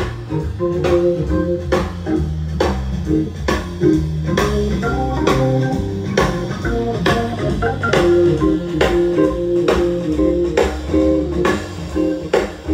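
Band music with electric guitar, bass and a steady drum beat, played back through a 1957 Realistic vacuum-tube amplifier and a Gough speaker enclosure with a single Electro-Voice SP8B 8-inch coaxial driver.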